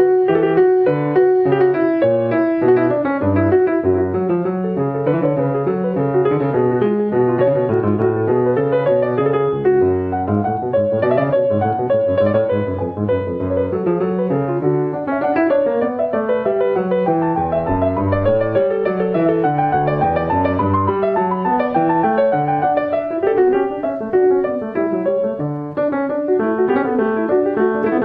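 Yamaha Disklavier acoustic piano playing a written score on its own, its keys driven by actuators under the control of a computer performance model that shapes the playing expressively. A continuous flow of notes.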